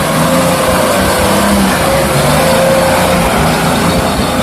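Loud, steady car engine running with a rushing hiss, most likely a vehicle sound effect laid over the toy-car footage.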